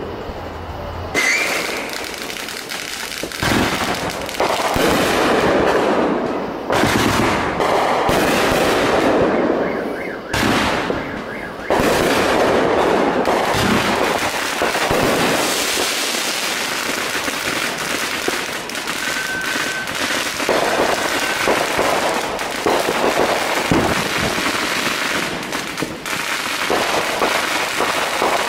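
Fireworks going off: a dense, unbroken crackling and popping, with louder sharp bangs every few seconds in the first half.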